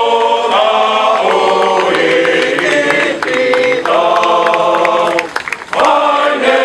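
A column of marching firefighters, men's voices singing a marching song together in long held notes, with a short break about five seconds in before the next phrase.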